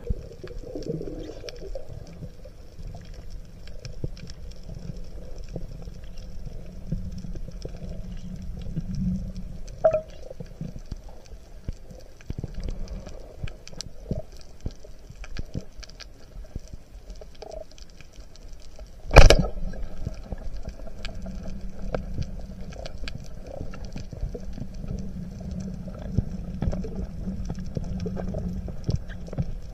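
Underwater sound through a camera housing: a steady low rush of water with scattered faint clicks, and about two-thirds of the way through one loud, sharp crack, a speargun firing.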